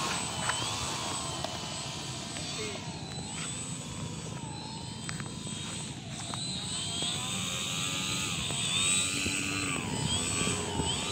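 RC model Maule airplane's motor and propeller running as it taxis on grass, the pitch rising and falling as the throttle is worked.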